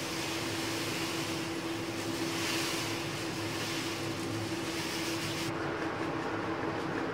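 Granulated sugar pouring in a steady stream into water in an aluminium kadhai, a hiss that stops about five seconds in. A steady low hum runs underneath.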